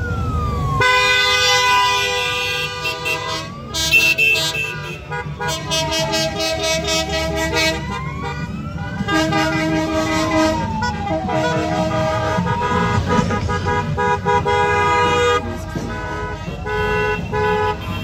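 A passing parade of Honda Gold Wing motorcycles and trikes: a siren wails slowly up and down while horns sound repeatedly in long steady toots, over the rumble of the bikes' engines.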